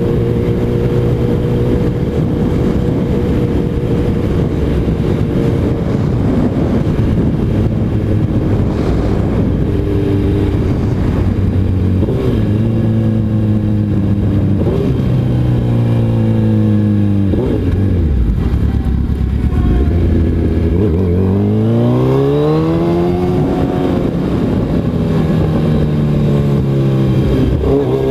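Suzuki Hayabusa's inline-four engine pulling steadily under way, then revs dropping and rising several times, with a long climb in pitch about three quarters through as it accelerates.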